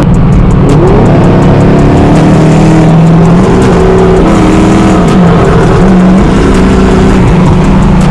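A car engine running hard and loud, its pitch holding steady, then dipping and climbing back several times as the revs change.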